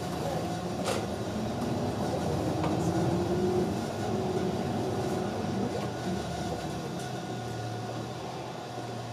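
Inside a city bus on the move: engine and road noise, with a sharp click about a second in. Near the end it settles to a steady low hum.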